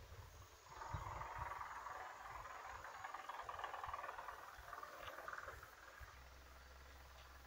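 Faint buzzing chorus of insects, starting about a second in and fading out near the end, over a low rumble of wind on the microphone.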